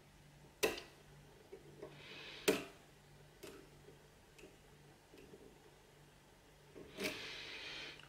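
Lock pick and tension tool working the wafers of an Illinois Duo padlock: a few sharp metal clicks, the loudest about two and a half seconds in, then a click and a brief scrape near the end.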